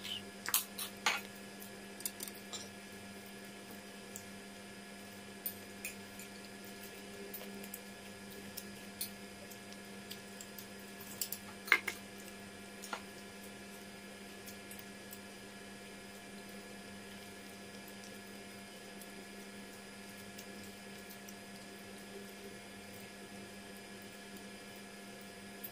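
Quiet sounds of a person eating by hand: a few short clicks of a spoon on a plate near the start, then scattered soft clicks and mouth sounds, with one sharper click a little under halfway. A steady low hum runs underneath.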